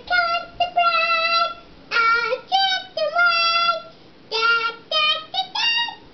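A child singing in a high voice: a run of short, held notes in quick phrases with brief breaks between them, and no clear words.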